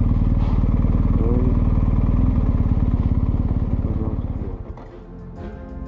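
BMW GS motorcycle's boxer-twin engine running steadily, then dropping away about four and a half seconds in; music comes in near the end.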